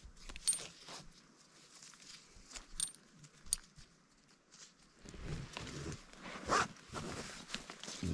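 Hammock straps being threaded and pulled through their buckles: scattered sharp clicks and small clinks, then denser rustling and rubbing of strap and rope from about five seconds in.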